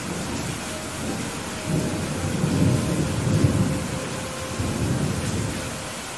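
Steady rain hiss with a low rumble of thunder that swells about a second and a half in, peaks near the middle and dies away toward the end.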